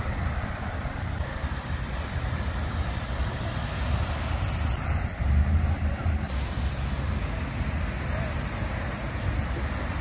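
Water fountain splashing in a steady rush, with wind buffeting the microphone in a low rumble that gusts harder about five seconds in.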